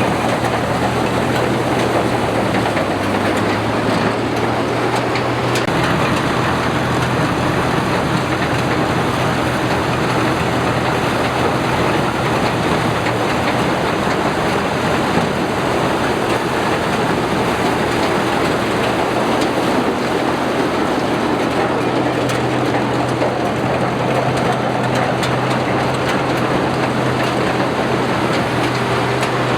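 Rice combine harvester running steadily under load, its engine holding a constant low hum beneath a dense clatter of machinery.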